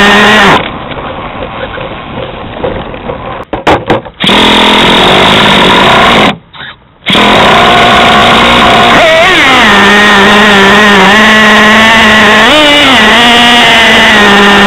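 Nitro glow-plug engine of a Traxxas T-Maxx 2.5 RC truck running hard, heard from right on top of the truck. The sound falls away twice for a moment, then the engine note sinks and rises again with the throttle.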